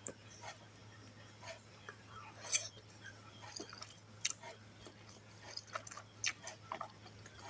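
Close-miked chewing of fried instant noodles: irregular small wet mouth clicks and smacks, the sharpest about two and a half seconds in, over a steady low hum.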